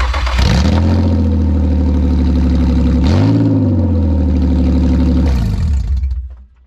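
Infiniti G35's 3.5-litre V6 idling super loud with no exhaust past the test pipes, the catalytic converters removed. One quick rev blip about three seconds in, then the engine sound stops a little before the end.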